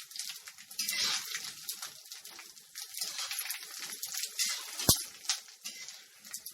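Sago pearls deep-frying in hot oil, crackling and popping irregularly. A single sharp knock stands out a little before five seconds in.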